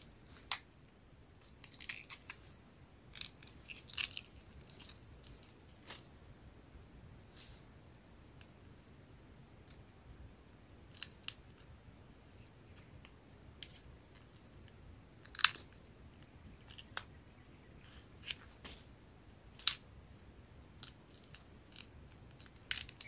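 Someone eating a crunchy snack close to the microphone: scattered crunches and clicks of biting and chewing. Underneath runs a steady high insect drone, with a second high insect tone joining about fifteen seconds in.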